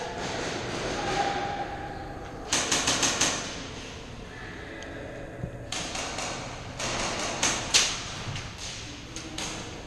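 Airsoft gunfire: a quick burst of about five sharp cracks a few seconds in, then scattered cracks and snaps over the next few seconds.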